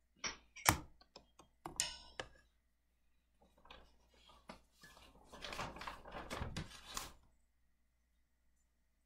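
Handling noise: several sharp knocks and clicks, then a few seconds of rustling that stops near the end.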